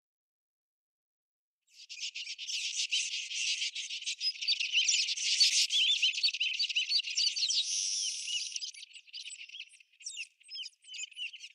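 Dense, high-pitched chirping and twittering of wild birds with insect trills in the bush, starting abruptly about two seconds in after silence and thinning out near the end.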